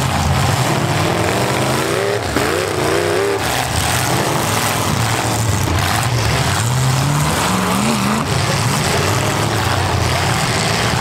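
Several demolition-derby cars' V8 engines running together at high revs, the pitch rising and falling as they rev, with a burst of revving about two to three seconds in.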